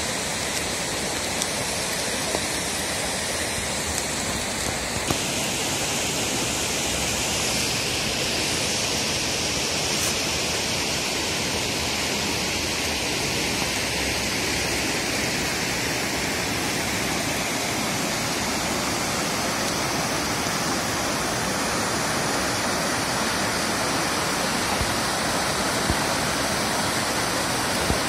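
Mountain river rushing over rocks in a steady roar of white water; the tone shifts slightly about five seconds in.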